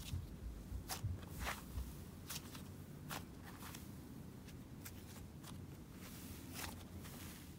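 Fluffy cloud slime being stretched and squeezed by hand, giving faint, irregularly spaced crackling clicks as its airy texture pulls apart.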